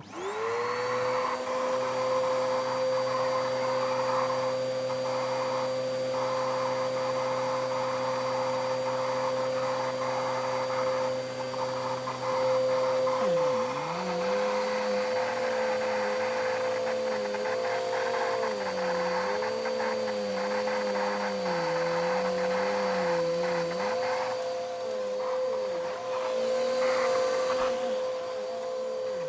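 Vacuum cleaner switching on, its motor spinning up to a steady whine within about a second and then running. About halfway through, the lower hum underneath drops and then wavers up and down while the main whine holds steady.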